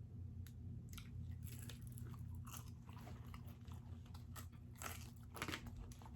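Close-miked chewing and biting of food, with irregular wet mouth clicks and crunches. A steady low hum runs underneath.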